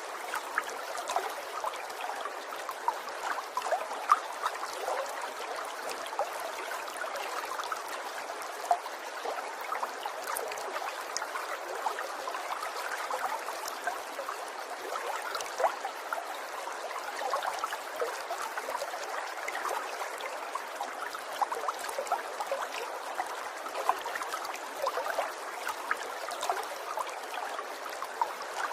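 Water trickling and babbling steadily, a continuous splashing with many small, quick bright splashes.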